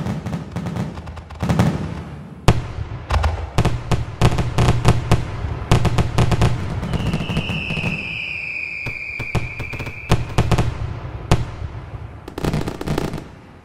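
Fireworks bursting and crackling in quick succession over a low rumble. A long whistle, falling slightly in pitch, runs from about seven seconds in to about ten.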